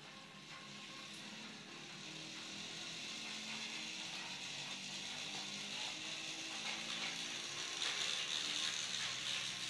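Battery-powered Tomy toy train's small electric motor and gears whirring, with the wheels rattling along plastic track. The sound grows steadily louder as the train comes nearer and is loudest near the end.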